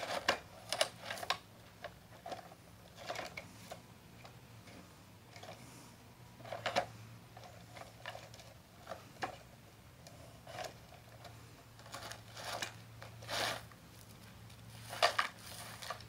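Toy excavator bucket scraping and scooping gravel, with small stones crunching and rattling in irregular clicks and scrapes, a few louder clusters along the way.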